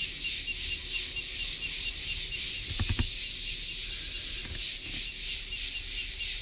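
Steady high-pitched chorus of insects such as crickets or cicadas. A brief low bump comes about three seconds in.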